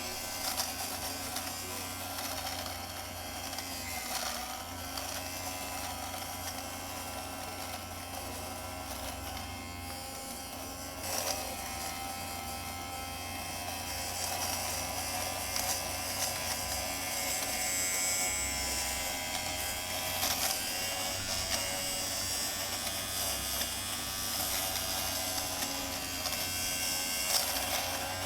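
Kelite electric fabric lint remover (sweater shaver) running steadily as its spinning blades shave fuzz off sweatpants fabric. Its motor gives a steady buzzing hum whose pitch dips briefly a few times.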